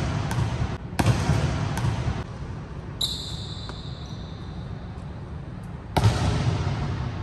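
Basketball bouncing on a hardwood court, each bounce ringing out through a large empty arena. A few bounces come in the first two seconds, then the ball lands hard again about six seconds in after a long high shot.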